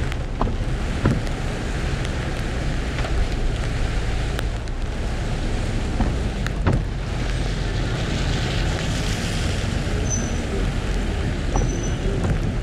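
Car driving through rain, heard from a dashcam: a steady low rumble of road and engine noise under a hiss of rain, with a few sharp ticks scattered through.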